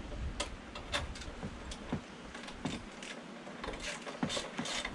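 Light, irregular metallic clicks of a wrench on the chain adjuster bolt at the rear axle of a Honda XR100R dirt bike, as the chain is tightened.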